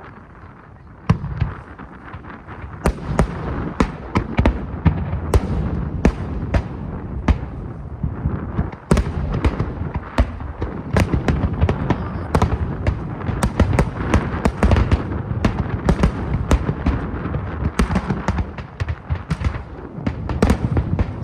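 Fireworks display with a dense, continuous run of bangs and crackling bursts, after a brief lull in the first second.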